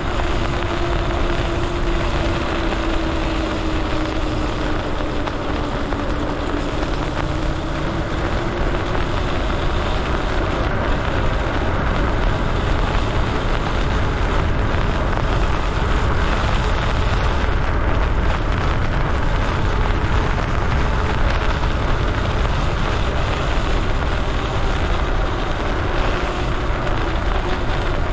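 Wind rushing over the microphone and wet tyres hissing on a rain-soaked road as an electric bike rides at speed. The electric motor whines over the first several seconds, its pitch dipping and then rising again.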